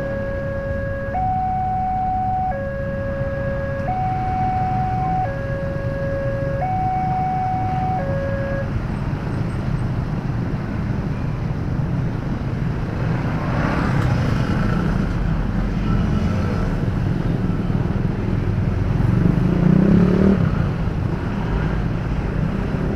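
Railway level-crossing warning alarm sounding a two-note electronic signal, switching between a high and a low note about every 1.3 s, the warning that the crossing is closed for a train; it stops about nine seconds in. Under it and after it, traffic of motorcycles and vehicles runs on, with an engine swelling near the end.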